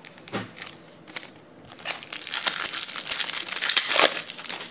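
Thin clear plastic bag crinkling as trading cards are handled, starting about two seconds in and loudest near the end, with a couple of light clicks before it.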